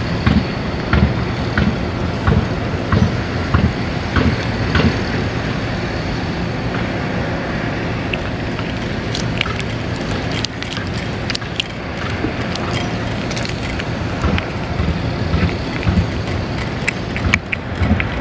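Cat chewing and licking moist bonito flakes from a steel dish close to the microphone, with many small irregular wet clicks and smacks over a steady low rumble of wind on the microphone. A plastic treat pouch crinkles briefly around the middle.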